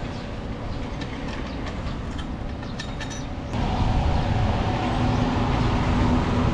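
Low outdoor rumble of traffic with a few light metallic clicks as a padlock at a bollard's base is worked. About three and a half seconds in it cuts abruptly to the louder, steady running of a Nissan Caravan van's engine at idle.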